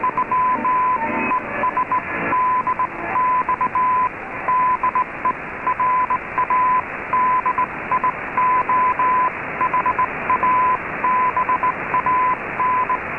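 Morse code received over a shortwave AM broadcast: a tone near 1 kHz keyed in short and long elements, over steady static hiss.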